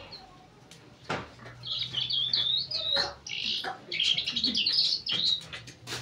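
Caged lark singing a fast, warbling run of high chirping notes from about a second and a half in, with a few sharp clicks among them.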